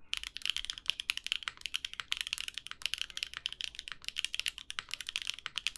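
Fast, continuous typing on a Qwertykeys Neo80 mechanical keyboard: keystrokes from lubed Gateron Azure Dragon switches on an aluminium plate, with GMK keycaps, in a rapid stream of crisp clacks.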